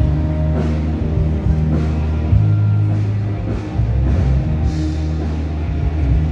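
Rock music with drums, guitar and a heavy bass line.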